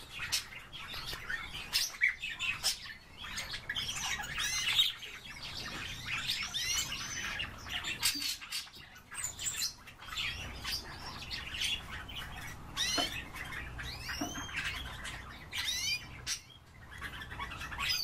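Young male canaries chirping and warbling in short, rapid phrases of rising and falling whistles, with scattered clicks: their song is just beginning to develop.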